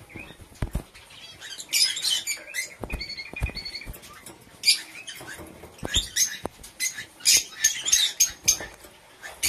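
Small cage birds chirping in quick, scattered bursts, with a few soft knocks as a Gouldian finch hops about its wire cage.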